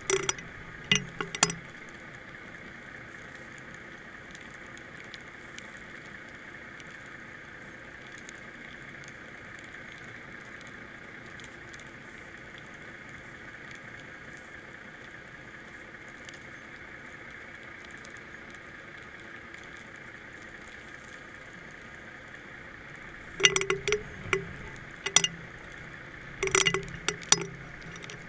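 Sound picked up by a GoPro in its waterproof housing, hanging underwater on a fishing line: a steady muffled hiss. Clusters of sharp clinks and knocks from the camera rig come in the first second and again a few seconds before the end.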